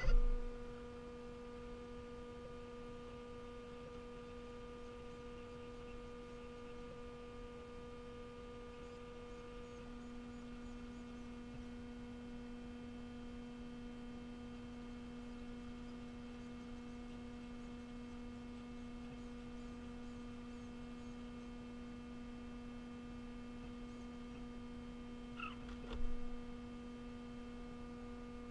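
Steady electrical hum with a ladder of even overtones, unchanging throughout. A short, louder sound breaks in once near the end.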